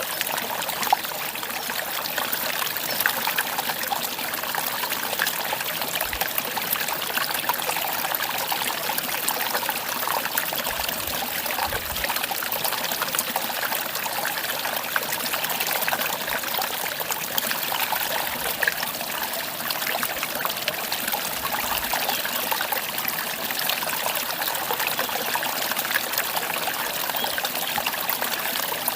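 Mountain valley stream trickling steadily, an even rush of running water.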